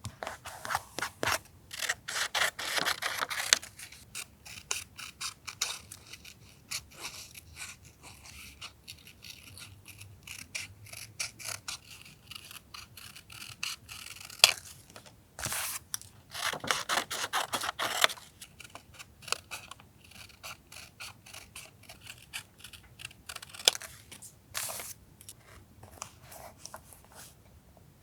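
Scissors cutting paper in short snips, with paper rustling and small clicks and taps; two longer stretches of cutting or rustling come about a second in and about sixteen seconds in.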